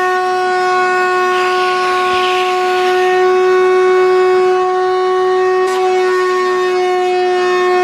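ShopVac wet/dry vacuum motor running steadily, a high whine with many overtones. A rush of air through the hose swells about two seconds in, and a single sharp click comes about six seconds in.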